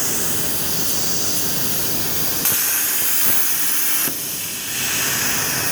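CNC plasma torch cutting 4 mm steel plate: the arc and cutting air hiss steadily. It turns sharper about two and a half seconds in and thins out briefly about a second and a half later.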